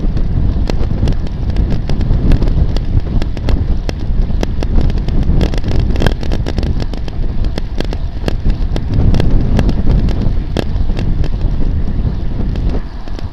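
Wind buffeting the microphone of a camera mounted on a moving bicycle, with a steady low rumble of road noise and frequent sharp clicks and knocks throughout.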